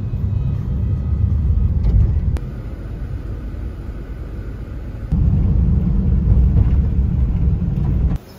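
Low road rumble of a car driving through city traffic, heard from inside the car. The level jumps suddenly about two and a half seconds in, again about five seconds in, and drops sharply near the end.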